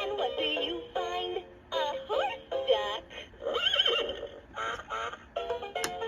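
Electronic toy's synthesized sing-song tune with a horse whinny sound effect about halfway through, then a sharp click near the end.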